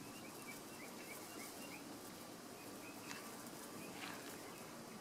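Faint outdoor background with a small bird chirping a quick run of short, high notes in the first two seconds, then a couple of soft ticks.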